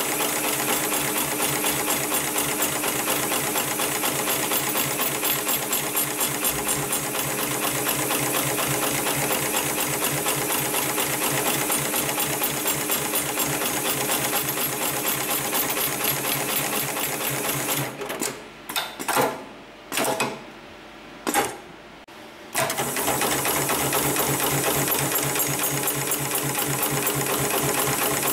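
HIGHTEX 7273PLK automatic pattern sewing machine stitching through heavy harness webbing, a fast, even run of stitches. About eighteen seconds in it stops for a few seconds, with a handful of sharp clicks, and then starts stitching again.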